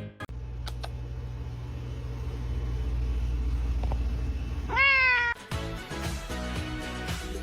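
A cat meows once, a single call that rises and then falls in pitch, over a steady low hum.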